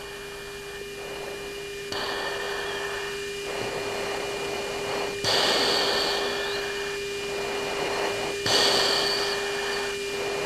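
Military jet cockpit radio and intercom audio with no one talking: a steady hum-like tone runs under radio hiss that jumps up in level several times as the channel opens, loudest about five seconds in.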